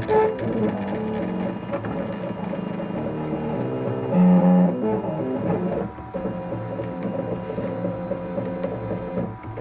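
CNC machine's stepper motors whining at shifting pitches as the axes move, the tone jumping every fraction of a second, with a louder, lower tone about four seconds in.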